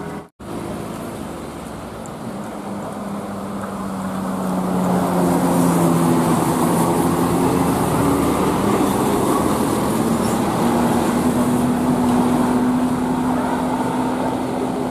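Bus running on the road: a steady engine drone and road noise that grows louder about five seconds in, the engine note shifting higher in the second half.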